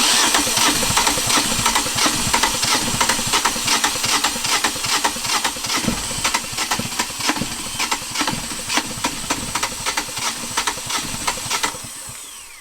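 Yanmar 2GM two-cylinder marine diesel being cranked on its starter, turning over with uneven knocks for about twelve seconds without catching, while air is still being bled from the injector lines. It cuts in suddenly and winds down near the end.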